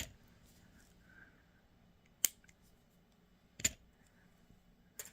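Three short, sharp clicks, well spaced, from jewellery tools and beading wire being handled over faint room tone.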